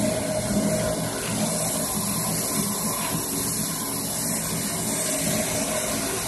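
Kraft paper slitter rewinder machine running steadily: a continuous mechanical hum with a hiss over it as the slit paper rolls wind onto the shaft.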